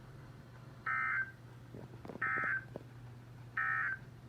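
Emergency Alert System end-of-message signal: three short, identical bursts of buzzy digital data tones, about a second apart, marking the end of the alert broadcast. A faint low hum runs underneath.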